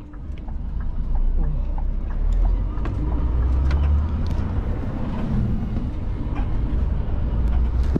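Vehicle engine running with a steady low drone, heard from inside the cab, with light rattles and clicks over it; it gets louder over the first second.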